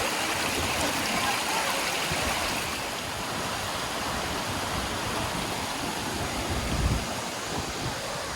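Waterfall and mountain stream rushing, a steady hiss of falling water, with a brief low rumble about seven seconds in.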